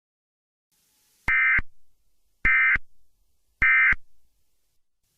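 Emergency Alert System end-of-message code: three short, loud bursts of digital data tones, each a warbling screech about a third of a second long, about a second apart. They mark the end of the alert.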